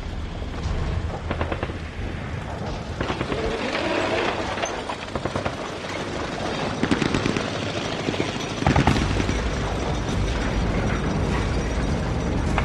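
War-film battle sounds: short bursts of rapid gunfire, each about half a second long, repeated through the stretch. A heavy low rumble comes in suddenly about nine seconds in.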